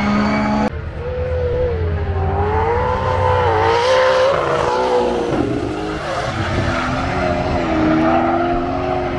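Drift car sliding: engine revs rising and falling with tyres squealing, loudest about four seconds in.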